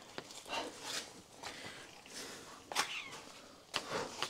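A person breathing hard in short, noisy breaths, coming irregularly about once or twice a second.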